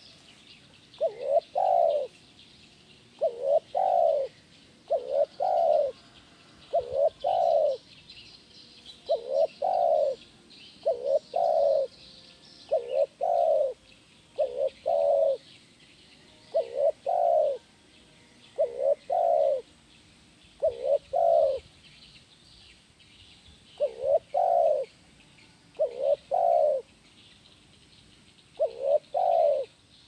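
Spotted dove cooing: short, low coos repeated in pairs and threes about every two seconds, with a few longer pauses, over faint high chirping in the background.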